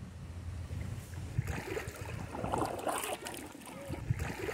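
Water splashing and dripping from kayak paddle strokes, with wind noise rumbling on the microphone. The splashes pick up about a second in.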